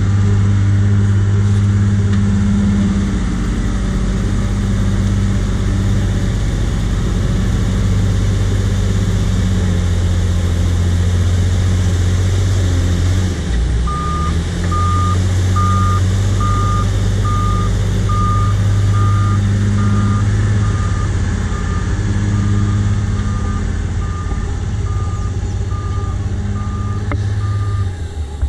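JCB 436ZX wheel loader's Perkins 1006.6T six-cylinder turbo diesel working under load while pushing earth, with a brief dip in engine sound about halfway through. From then on its reversing alarm beeps about once a second as it backs away.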